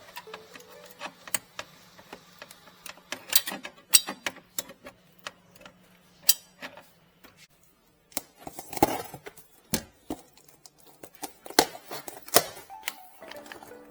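Irregular metallic clicks, clinks and knocks of hand tools and metal parts being handled during refrigerator compressor repair work, with a faint steady low hum that stops about six seconds in.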